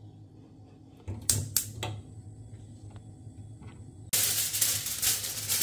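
Gas hob spark igniter clicking three times in quick succession about a second in, lighting the burner, followed by a faint steady high hiss from the gas burner. About four seconds in, a loud crinkling rustle of aluminium foil being handled starts suddenly.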